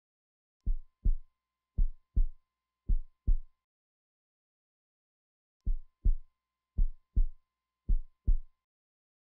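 Heartbeat sound effect: low lub-dub double thumps, three beats about a second apart, a pause of about two seconds, then three more.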